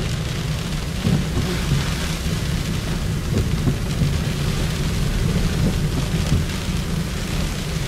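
Rain and wet-road noise inside a moving car's cabin: a steady low rumble from the road and engine under the hiss of tyres on wet pavement and rain striking the windshield and roof.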